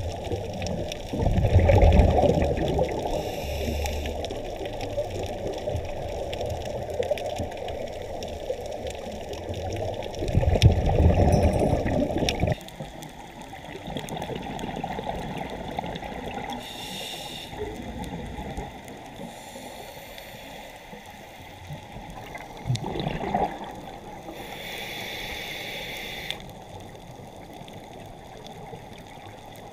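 Underwater sound of a scuba diver breathing through a regulator: gurgling bursts of exhaled bubbles alternating with short hisses of inhaled air, over a steady wash of water. The loudest bubble bursts come early and around ten seconds in, and the sound drops abruptly about twelve seconds in.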